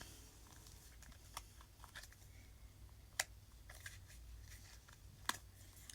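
Quiet room with a low steady hum and a few faint, sharp clicks and taps of makeup items being handled; the clearest click comes about three seconds in.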